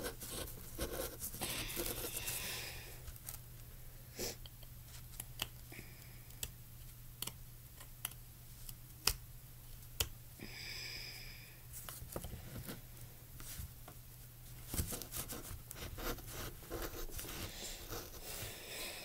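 Knife blade scoring a wooden pencil: a run of short, irregular scrapes and clicks as the blade cuts into the wood, with a brief squeak about ten seconds in.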